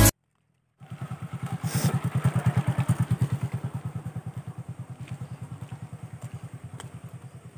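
Small engine chugging at a steady fast beat, starting about a second in, growing louder for a couple of seconds and then slowly fading, as a motorcycle passing at low speed does.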